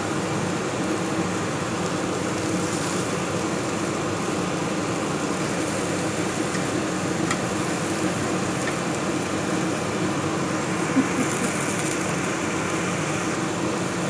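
Pork neck slices sizzling on a wire grill rack over the burner, under a steady hum and rush, with a few faint pops.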